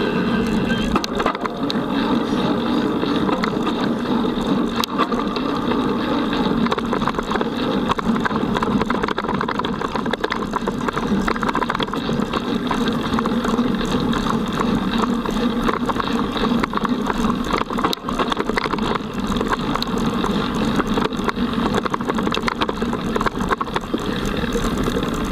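Mountain bike ridden fast over a forest track: a continuous rush of wind and tyre noise, with constant small rattles and knocks from the bike over the bumps.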